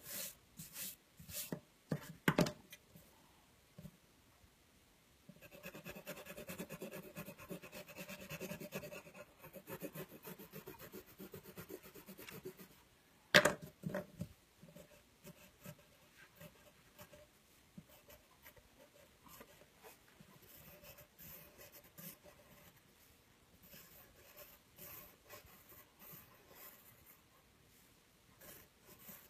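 Watercolour pencil scratching and rubbing on paper as a drawing is coloured in, with a denser stretch of rubbing a few seconds in. A few small knocks near the start and one loud sharp knock about thirteen seconds in.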